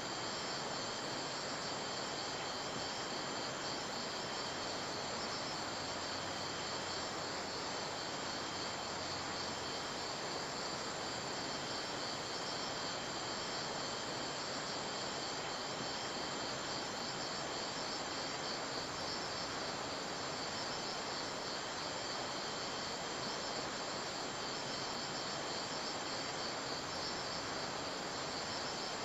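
A steady chorus of crickets trilling at several high pitches, over an even hiss.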